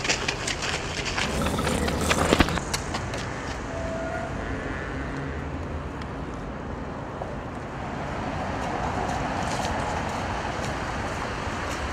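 Steady street noise of road traffic, preceded in the first couple of seconds by a scatter of clicks and knocks, loudest about two seconds in.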